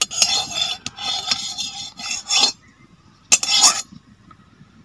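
Metal spatula scraping around the inside of an empty wok: several scrapes in a row, a pause, then one more short scrape.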